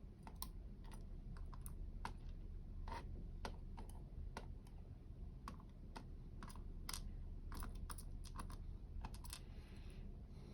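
Small, sharp, irregular metal clicks and ticks, about one or two a second, as tools and tiny lock parts are handled while pins are taken out of a dimple lock's chambers.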